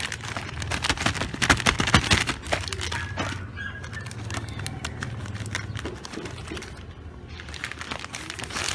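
Plastic packaging crinkling and crackling as a rack-mount patch panel is pulled out of its bag, densest in the first couple of seconds, thinning out, then another burst near the end. A faint steady low hum runs underneath.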